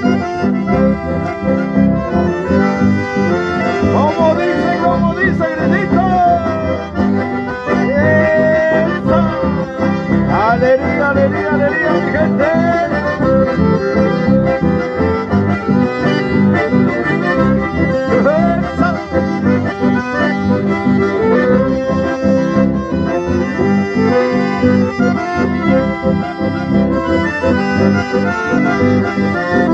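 Live band music led by two button accordions, one a Hohner, playing the melody over an electric bass, with a steady dance beat.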